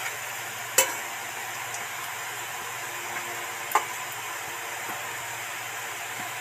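Pumpkin pakoras sizzling in hot oil in a metal kadai during their second fry. A metal slotted spoon stirs them and clicks against the pan twice.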